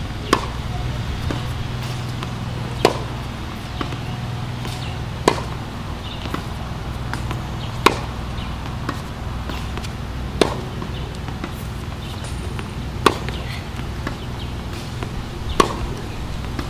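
Tennis racket striking the ball in a baseline rally: a sharp pop about every two and a half seconds, with fainter knocks between them. A steady low hum runs underneath.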